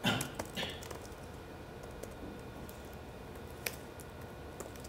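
Faint, scattered clicks of computer keyboard keys being typed, with a brief louder sound at the very start.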